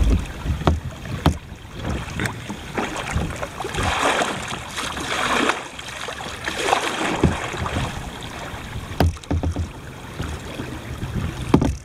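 Plastic kayak hulls and a paddle knocking and scraping against a fallen tree, with water washing around them, as a small kayak is hauled over the log on a rope. There are several sharp knocks a few seconds apart and a longer scraping rush about four to five seconds in.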